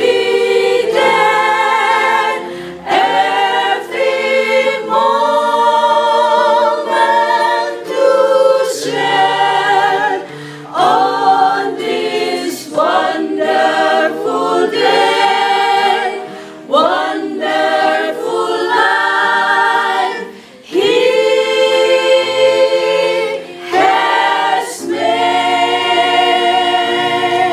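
A small mixed choir of women's and men's voices singing a church song in phrases, accompanied by a strummed acoustic guitar.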